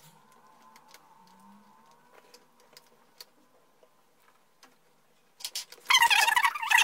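Light clicks and taps of plastic play-dough tools, tubs and lids handled on a wooden table. Near the end a much louder high, wavering squeal cuts in for about a second.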